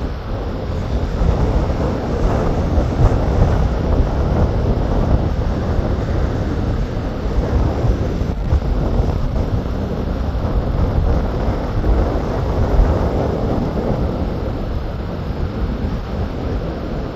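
Wind buffeting the microphone: a loud, uneven low rumble that swells and eases without a break.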